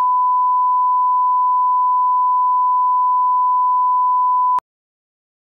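Broadcast line-up tone: a single steady pure 1 kHz sine tone played with colour bars as the reference for setting audio levels. It cuts off abruptly about four and a half seconds in.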